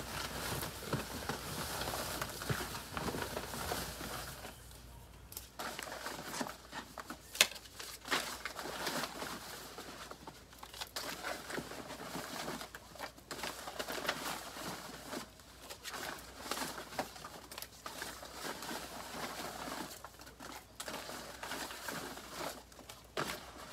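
Paper cards and slips being rummaged through in a fabric basket and dropped onto a wooden desk: irregular rustling and crinkling of paper with scattered light taps.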